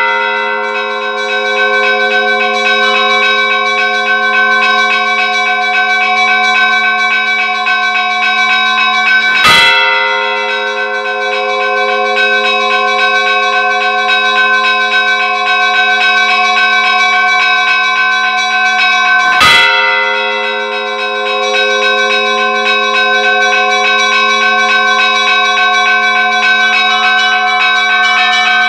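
Church bells ringing: a fast, steady run of light strokes keeps many tones sounding, and a heavy stroke lands about every ten seconds, twice in all.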